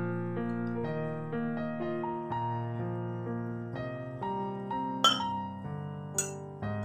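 Soft background piano music, a run of single notes. Near the end come two sharp clinks of kitchenware, about a second apart.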